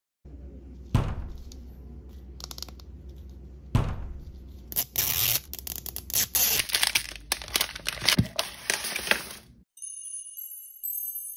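Plastic wrapper of an L.O.L. Surprise Mini Sweets ball crinkling and tearing as it is peeled open, over a low steady hum, with two sharp knocks from handling the plastic in the first few seconds. Tinkling music starts near the end.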